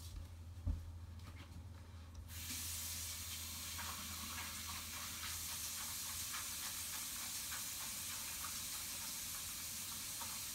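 A low hum with a few soft knocks, then about two seconds in a steady hiss starts abruptly and runs on evenly, with faint ticks in it.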